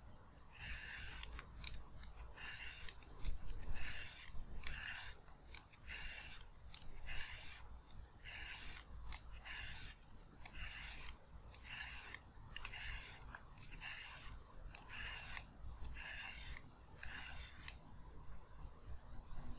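Y-shaped vegetable peeler scraping strips off a raw carrot in short, even strokes, about one a second, which stop near the end.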